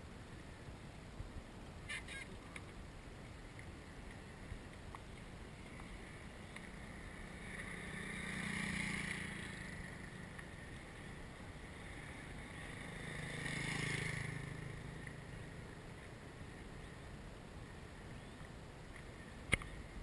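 Two road vehicles passing one after the other, about five seconds apart, each swelling and fading away, over a steady low outdoor background; a sharp click near the end.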